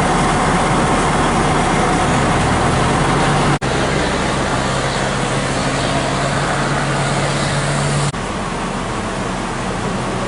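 Road vehicle noise: a steady rumble of engine and tyres, with a low steady hum in the middle stretch, broken off sharply about three and a half seconds in and again about eight seconds in.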